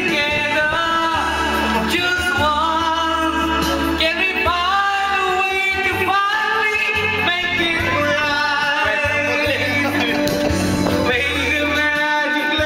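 A man singing karaoke into a handheld microphone over a backing track, holding long wavering notes that slide up and down in pitch.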